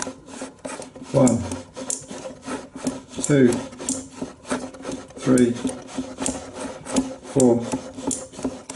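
Mechanism of a De Vry 35mm silent film projector turned slowly by hand: many light clicks from the gears and intermittent sprocket, with a rubbing squeak that recurs about every two seconds.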